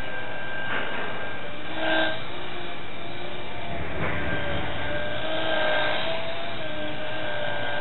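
Micro RC airplane's small geared electric motor and propeller whining in flight, the pitch of the whine drifting slowly up and down with the throttle, with a few brief rushes of noise.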